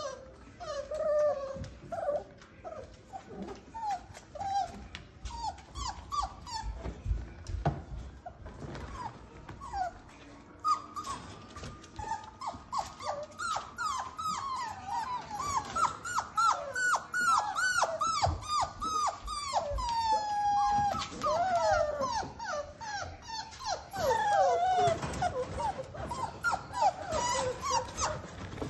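Six-week-old Aussiedoodle puppies whining and yipping, many short high calls overlapping, thickest through the middle, with scattered light clicks.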